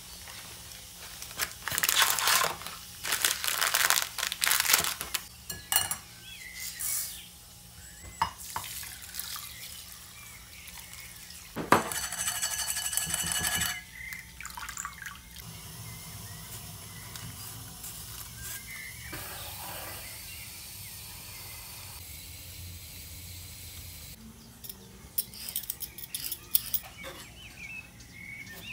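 Tap water running and splashing through pearl barley in a fine-mesh metal sieve as the barley is rinsed. Near the end, a knife cuts through carrot on a board in a few sharp clicks.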